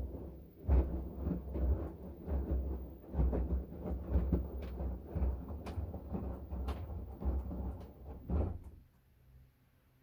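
LG direct-drive front-loading washing machine drum turning a wash load, giving a run of irregular low thuds and swishes that stop about nine seconds in as the drum pauses.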